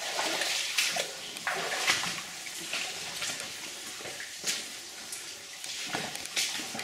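Footsteps wading through shallow water on a flooded mine tunnel floor, with irregular splashes every second or so over a steady watery hiss.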